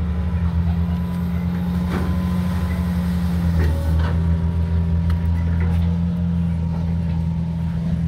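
An engine running steadily with a low, even hum, with a few faint clicks about two and four seconds in.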